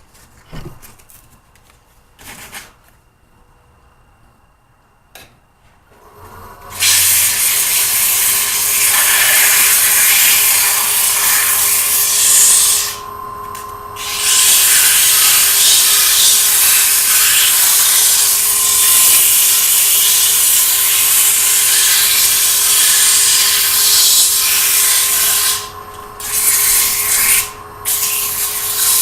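60-grit sandpaper held against a wood turning spinning slowly on a lathe: a loud, steady rasping hiss over a steady hum. It starts about six seconds in, after a few light clicks, and drops away briefly three times as the paper is lifted.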